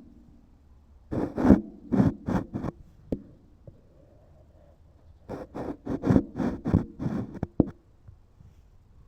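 Two runs of quick knocks: about five about a second in, then about ten more in faster succession from about five seconds in, each with a short low ring.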